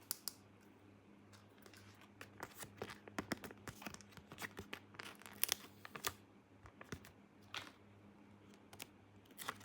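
Toy packaging being torn and crinkled by hand during an unboxing: a quick run of short rustles and snaps, busiest through the middle, then a few scattered ones. A faint steady hum underneath.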